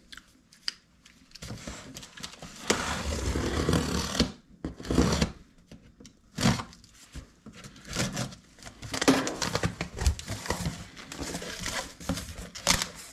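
A cardboard shipping box being opened by hand: the packing tape is cut, then the flaps are pulled open, giving cardboard scraping, rustling and knocks. A longer stretch of steady scraping comes a little under three seconds in.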